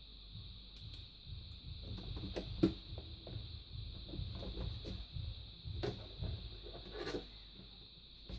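Quiet handling sounds: scattered small knocks and rubbing, the sharpest a tap about two and a half seconds in, over a faint steady high hum.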